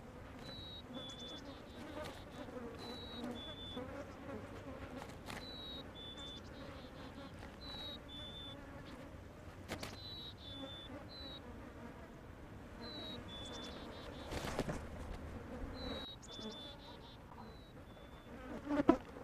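Flies buzzing steadily around a carcass. Near the end comes a louder brushing rustle of someone stepping through the grass.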